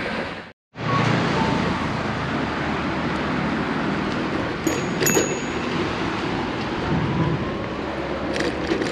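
Passing road traffic with wind rumbling on the microphone of a moving bicycle, a steady noisy hiss. The sound cuts out for a moment about half a second in, and two short high squeaks come close together about five seconds in.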